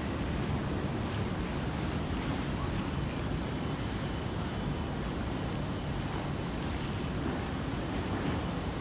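Steady low rumble of a harbour ferry with water washing, and wind buffeting the microphone.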